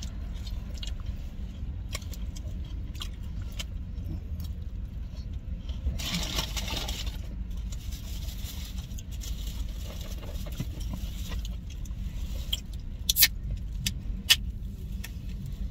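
Eating noises inside a car: scattered small clicks and a burst of wrapper rustling about six seconds in, over a steady low hum. Two sharp clicks come near the end.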